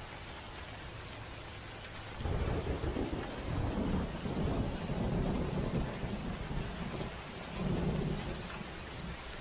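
Heavy rain falling steadily on the tent, with a rolling peal of thunder that starts about two seconds in, rumbles for several seconds and swells once more near the end.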